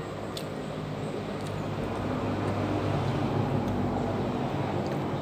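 A motor vehicle passing by: a low engine rumble that swells to its loudest about three seconds in and then eases off. A couple of faint clicks come about half a second and a second and a half in.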